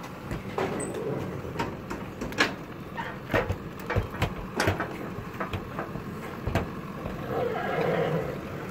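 A horse's hooves clopping on a paved street as it is led at a walk, in separate, irregular knocks over a steady low hum.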